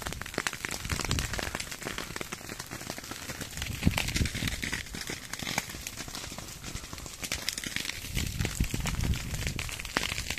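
Dense crackling of dry vegetation, a rapid run of sharp irregular clicks, with one louder snap about four seconds in and a low rumble joining from about eight seconds in.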